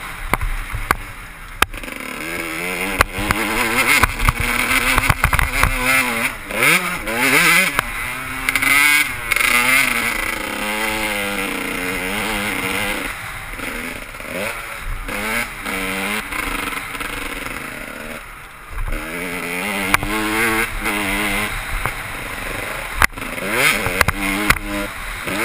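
Kawasaki KX125 125cc two-stroke single-cylinder motocross engine under way, its pitch repeatedly rising and falling as the rider opens and closes the throttle. Wind rushes over the helmet-mounted microphone, with scattered sharp knocks.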